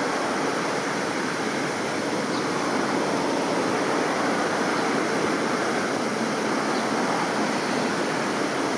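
Steady rushing noise at an even level throughout, with a few faint, brief high notes.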